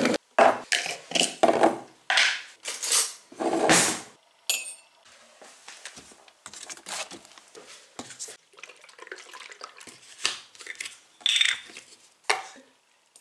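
Kitchen clatter of crockery and cutlery while making a coffee: a quick run of loud knocks and clinks in the first few seconds, then quieter handling sounds from a cupboard and an oat milk carton, with one more sharp knock near the end.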